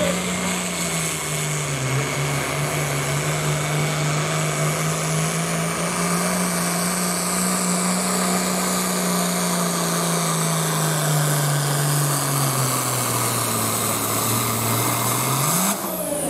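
International Harvester farm tractor's diesel engine running flat out under load as it pulls the weight sled, with a high whine over the engine note. The engine pitch dips about two seconds in and recovers, then sags over the last few seconds as the sled bogs it down, rises briefly, and cuts off suddenly near the end.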